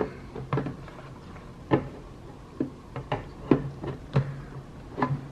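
Monitor stand arm being pushed into the mount on the back of a monitor, with a string of short clicks and knocks, the sharpest about two seconds in.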